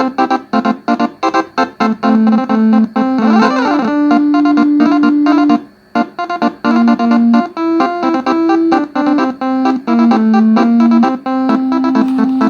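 A set of twelve tuned telolet bus horns playing a quick melody of short, bright notes, with a few longer held notes and a brief break about six seconds in.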